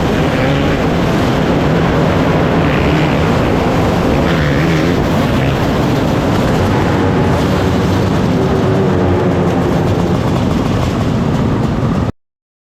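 A field of racing engines running hard together in a loud, steady drone of overlapping engine notes. The sound cuts off suddenly near the end.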